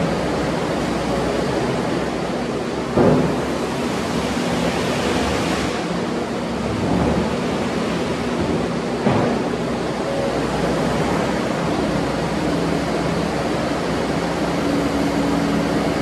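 Kubota SVL95-2S compact track loader's diesel engine running under a steady rushing noise while the machine turns on its tracks and raises its loader arms, with short clunks about three and nine seconds in.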